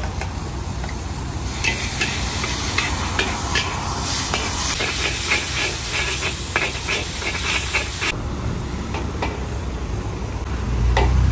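Instant noodles sizzling and steaming in a hot wok while a metal spatula clinks and scrapes against the wok in quick, irregular strokes as they are stir-fried, over a steady low rumble.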